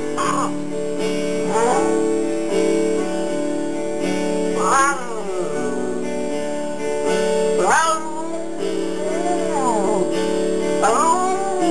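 A dog howling along to guitar music: about six drawn-out howls that rise and then fall in pitch, a second or more apart, over steady strummed chords.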